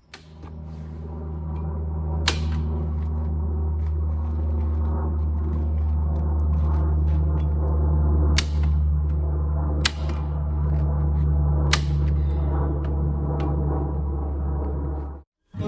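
A machine's steady low hum with four sharp cracks over it, unevenly spaced. The hum cuts off suddenly near the end.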